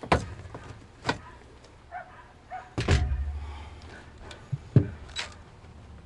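Sheet-metal knocks and clanks as the air handler's access panel is handled and taken off, with one loud thud about three seconds in that rumbles low for a moment before fading.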